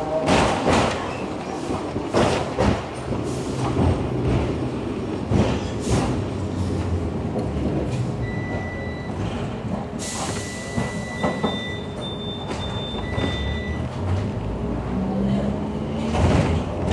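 Hong Kong double-decker electric tram running along street track, heard from on board. The wheels knock and clack irregularly over the rails under a low running hum. A thin high squeal comes and goes in the middle, with a short hiss about ten seconds in.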